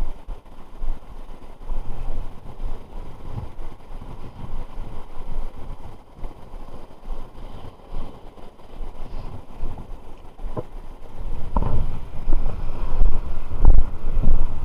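Wind buffeting the microphone in uneven gusts, a low rumbling noise that grows stronger about three-quarters of the way through, with a few faint ticks.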